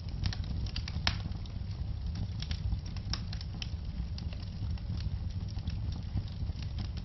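Fireplace fire crackling: frequent irregular sharp pops over a steady low rumble of the flames.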